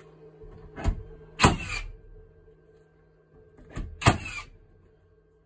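HiKOKI cordless nail gun firing two nails into timber about two and a half seconds apart. Each shot is a loud, sharp bang preceded by a lighter click and followed by a brief falling whir.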